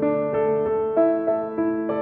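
Background music: a gentle electric-piano line of evenly paced notes over a held low note.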